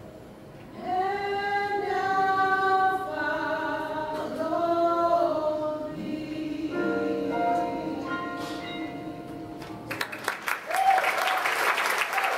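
Female vocal quartet singing slow, held chords in four-part gospel harmony with no instruments. Near the end the singing gives way to audience applause.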